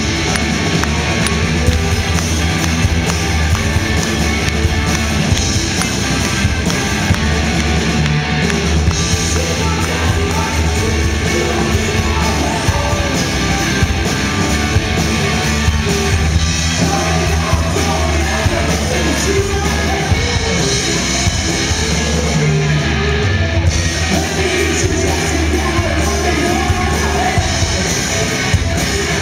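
Live rock band playing: electric guitars, bass guitar and drum kit, loud and continuous.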